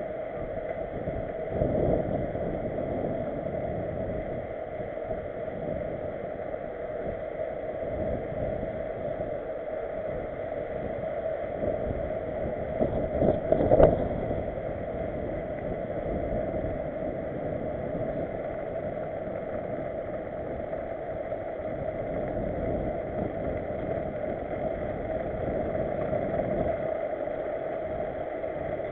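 Steady rushing wind and rolling rumble on the microphone of a camera mounted on a moving mountain bike, with one louder knock about fourteen seconds in.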